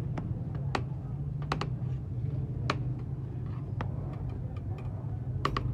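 Irregular sharp clinks and clacks of a metal serving spoon striking a large steel biryani pot and a plastic container as rice is scooped out, over a steady low hum.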